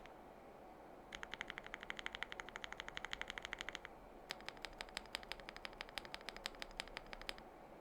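Typing on a Wuque Studio Mammoth75 gasket-mount keyboard with lubed Akko Cream V3 linear switches and PBT keycaps: fast clicky keystrokes in two runs, the first an even quick string of presses from about a second in, the second, after a short pause, a quick run of keys of varied pitch ending near the end.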